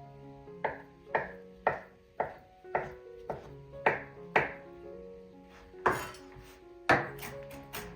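A knife chopping food on a cutting board, sharp knocks about two a second with a short pause about five seconds in, over soft instrumental background music.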